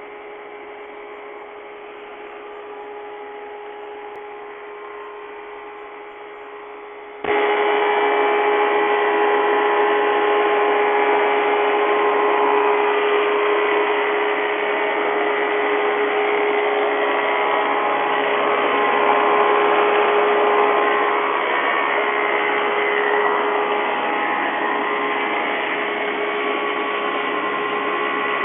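Woodmaster planer-molder running with a steady hum. About seven seconds in, it abruptly gets much louder and stays loud and steady.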